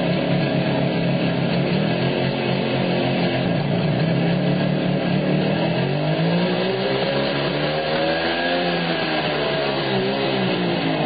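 Small rail motor draisine's engine running steadily, revved up and back down over a few seconds about halfway through.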